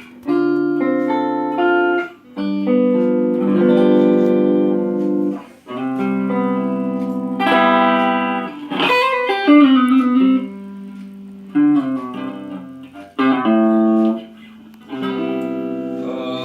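Electric guitar played through a small Belcat 15G practice amplifier: chords and short melodic phrases with brief pauses between them, and a few notes bent about halfway through.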